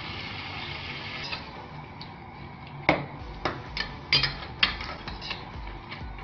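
A metal spoon clinking and knocking against a cooking pot as chicken, spices and yogurt are stirred together: about half a dozen sharp, irregular clinks in the second half. Before them, a steady hiss of frying for the first second or so.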